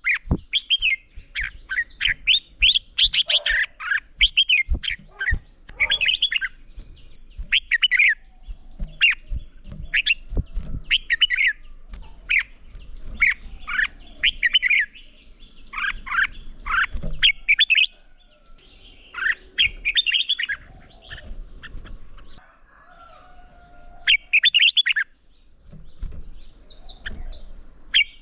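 Red-whiskered bulbuls singing competitive song in short, quick chirpy phrases, one after another, with a brief lull a few seconds before the end.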